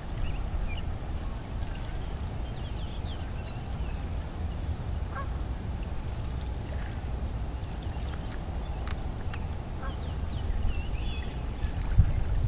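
Wind on the microphone as a steady low rumble, gusting louder near the end, with small birds chirping and calling on and off throughout.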